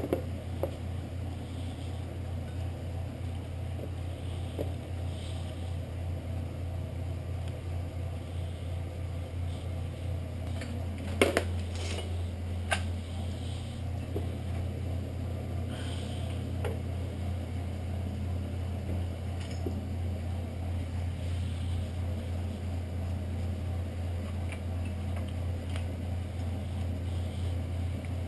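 Steady low hum, with a few sharp metal clinks from handling the rear brake caliper: one at the start, a quick pair about eleven seconds in and one more about a second later.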